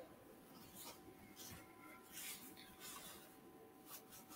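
Near silence: faint room tone with a low steady hum and a few soft, brief clicks.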